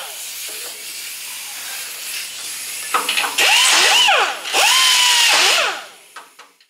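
Rotary burring tool whining with a hissing rush in short bursts, spinning up and winding down. The second run holds a steady pitch before dropping off. It is enlarging misaligned bolt holes in a power steering pump bracket so they line up.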